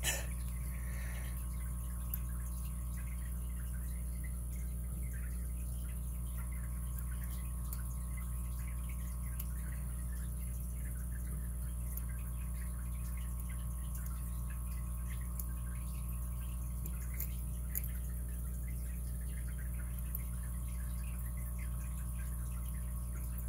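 Steady low electrical hum, with faint scattered ticks and scrapes of a lock pick working the pin stack of a brass padlock under a tension wrench, and two slightly sharper clicks, one about two seconds in and one later on.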